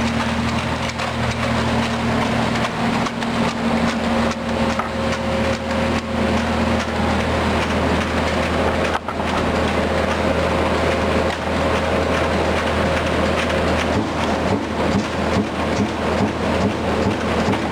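Finn-Power TP 3015 CNC turret punch running under power: a steady machine hum with a steady whine coming and going and many sharp clacks of working strokes.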